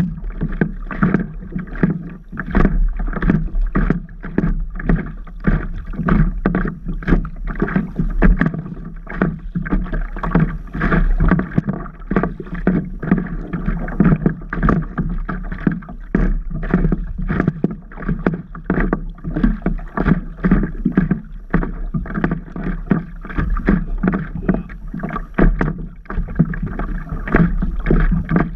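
Water slapping and splashing against the hull of a stand-up paddleboard right at the camera, a steady run of many small irregular splashes every second with no let-up.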